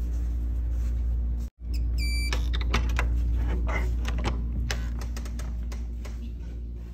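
A hotel room's keycard door lock gives one short electronic beep about two seconds in, then a run of sharp clicks and rattles as the lock and lever handle are worked and the door is opened. A steady low hum runs underneath.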